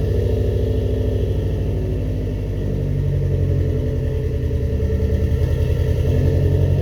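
Car engine idling on its first run after a cylinder head rebuild, with an even pulsing beat. The idle sags slightly about two seconds in and picks back up.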